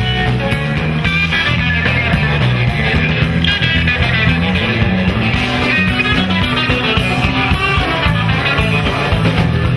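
Live rock band playing: electric guitar over drums and bass, with no vocals.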